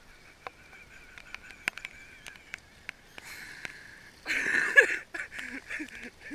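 Pond water splashing loudly for about a second, about four seconds in, as a swimmer hauls himself out over the stone rim of a fountain pond. Scattered sharp ticks of raindrops on the camera run throughout, and a string of short pitched sounds follows near the end.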